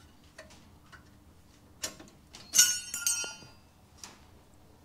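Metal clinking as a worn rear brake pad is worked out of its caliper: a couple of light clicks, then a bright metallic clink a little past halfway that rings for under a second.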